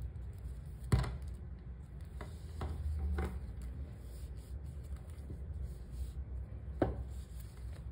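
Hands handling a cloth tape measure and a chain of T-shirt yarn on a tabletop: soft rubbing and rustling, with a sharp tap about a second in and another near the end.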